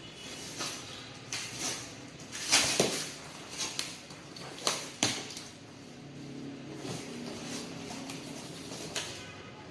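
Outer packing around the parcel being unwrapped by hand: irregular rustles, scrapes and crackles, loudest about two and a half seconds in and again about five seconds in.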